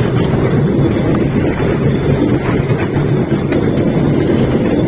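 Cambodian bamboo train (norry) running along the rails: a steady low rumble of its small engine and wheels on the track, with wind buffeting the microphone.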